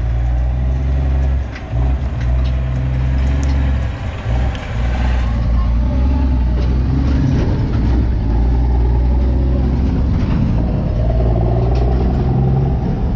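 A large vehicle's engine idling, a steady low rumble, with a few faint clicks over it.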